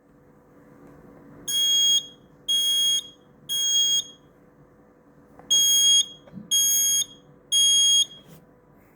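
Kidde smoke alarm sounding on test: two rounds of three loud, high-pitched beeps with a pause between the rounds, the temporal-three fire-alarm pattern.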